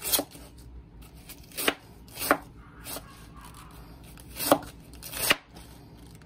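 Chef's knife finely shredding a cabbage wedge on a wooden cutting board: about six sharp knocks of the blade against the board, unevenly spaced.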